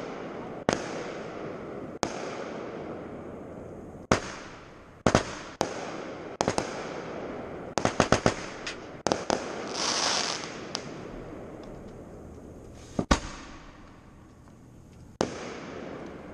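Aerial fireworks bursting: about a dozen sharp bangs, some in quick clusters, each followed by a long fading rumble. About ten seconds in there is a brief hissing crackle.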